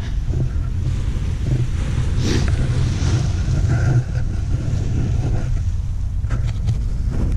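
Paramotor engine running at idle as a low, steady rumble, with wind buffeting the microphone.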